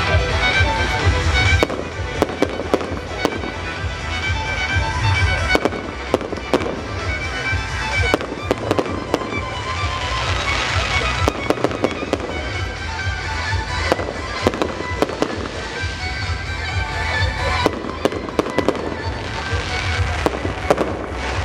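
Fireworks display: many sharp bangs and quick crackles in clusters throughout, over music playing with a heavy bass beat.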